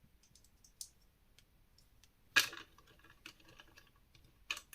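Plastic LEGO pieces clicking as they are handled and pressed together, a few light ticks and then a louder sharp click with a short rattle about two and a half seconds in, and another click near the end.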